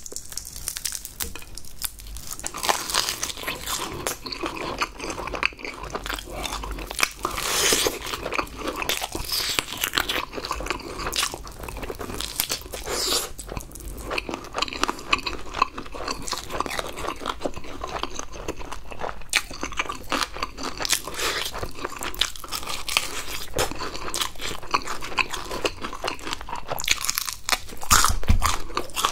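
Close-miked crunching and chewing of crispy fried chicken: repeated bites into the crust and chewing, with a steady run of crackles.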